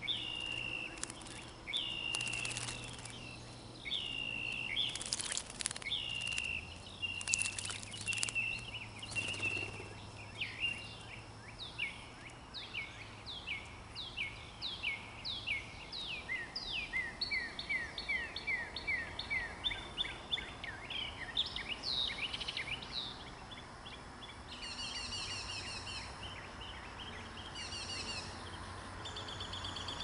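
Songbirds singing and calling. A short call repeats about every second and a half, then comes a long run of quick falling whistled notes, and near the end short bursts of buzzy high notes. In the first several seconds there are a few brief splashes from a bird bathing in a stone birdbath.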